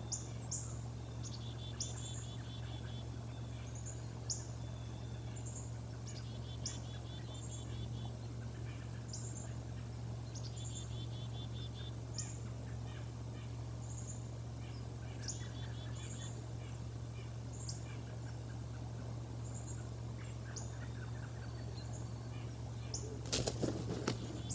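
Outdoor birdsong: short, high, falling chip notes repeated every second or so, with a few rapid rattling trills mixed in, over a steady low hum from the nest camera. Near the end a brief burst of rustling as the bald eagle takes off from its perch.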